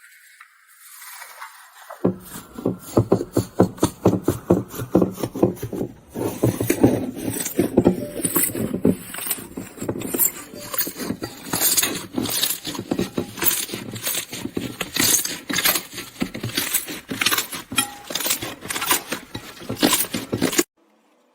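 Slime being squeezed and worked by hand, giving dense, irregular crackles and pops several times a second; they start about two seconds in after a fainter sound and cut off suddenly near the end.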